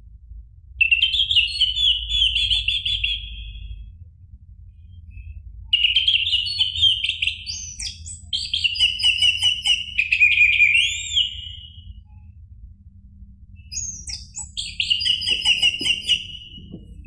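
Orange-headed thrush singing three rapid warbling phrases of trills and upward-sweeping whistles, separated by short pauses, over a faint low background hum.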